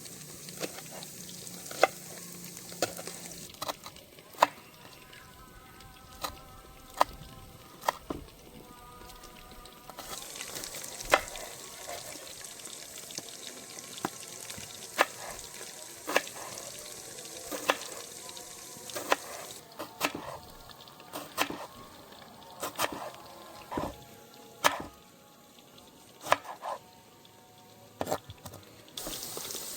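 Chicken and potatoes frying in hot oil, sizzling, with a utensil knocking and scraping against the pan every second or two as they are stirred. The sizzle grows louder about a third of the way in.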